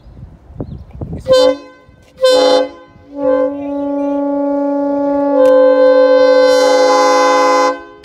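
Newly cast Nathan P5 five-chime locomotive air horn sounding: two short blasts, then one long blast of about four and a half seconds whose chord fills out partway through before cutting off sharply.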